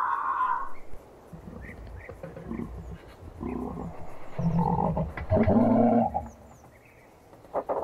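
Giraffe vocalising: a series of low, rough, snore-like grunts, several in a row and loudest past the middle. They follow a higher pitched call that ends within the first second.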